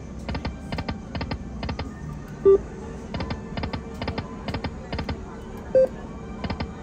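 Lightning Link Moon Race slot machine spinning, its reels ticking to a stop in quick runs of clicks. Two short chimes ring out, about two and a half seconds in and again near the end.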